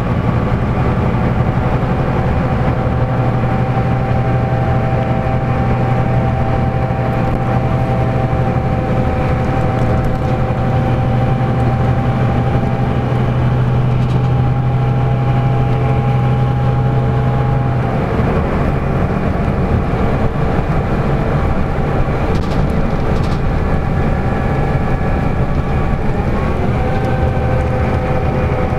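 Inside the cabin of a LiAZ-5250 bus at highway speed: a steady engine drone mixed with tyre and road noise, with a low hum and faint whining tones. About two-thirds of the way through, the low hum drops away and the engine note changes, and new whining tones come in near the end.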